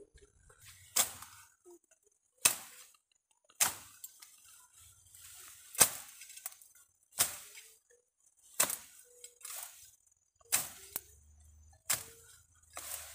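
Hand tool chopping in a field, about nine sharp blows at roughly one every second and a half.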